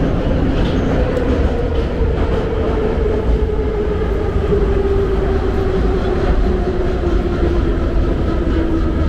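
Subway train running, heard from inside the passenger car: a steady loud rumble with a whine that slowly falls in pitch as the train slows into a station.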